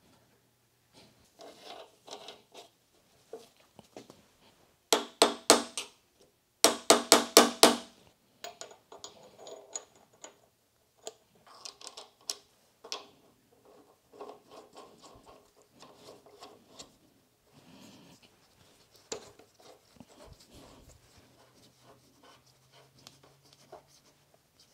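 Bearings and a grease shield being fitted by hand into the crossfeed bearing bore of a Cincinnati No. 2 tool and cutter grinder, with light scraping and handling noise. About five seconds in come two quick runs of sharp metallic taps, the second faster, and these are the loudest sounds.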